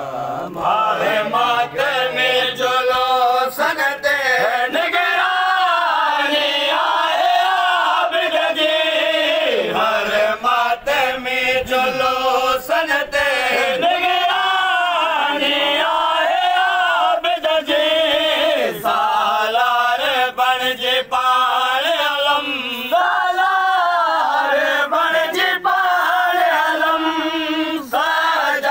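A group of men chanting a Sindhi noha, a matam lament for Imam Hussain, together and unaccompanied, in a long wavering melody.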